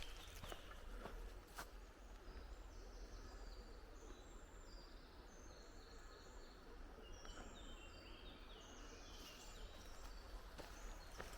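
Faint rural ambience with a small songbird singing a run of short, high chirping notes that jump about in pitch, over a steady low wind rumble; a couple of soft footsteps near the start.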